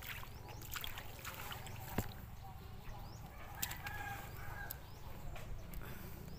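Footsteps and water sloshing, with scattered clicks, and a chicken calling briefly in the background about three and a half seconds in.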